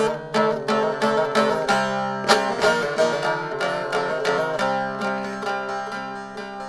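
Bağlama (long-necked Turkish lute) playing an instrumental passage between the sung lines of a mersiye lament. It plays a quick run of plucked notes that thins out and softens in the second half.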